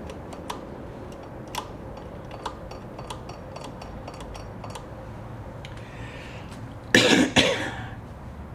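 Light clicks and taps of small metal sewing-machine parts being handled, then a loud cough about seven seconds in.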